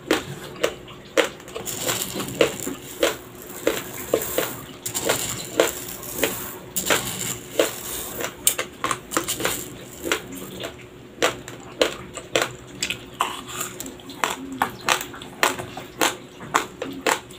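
Close-miked crunching of raw, dry Dinurado white rice grains between the teeth: sharp, crisp crunches a few times a second. In the middle comes a spell of rustling hiss as dry grains are tipped from the hand into the mouth and spill back into the bowl.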